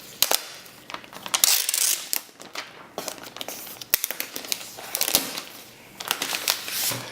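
Plastic wrapping being pulled off a new laptop and crumpled: irregular crinkling and rustling with a few sharp clicks, loudest about a second and a half in and again near the end.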